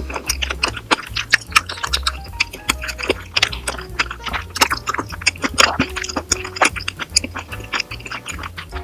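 Background music with a pulsing bass beat and short melodic notes, mixed with many sharp clicks.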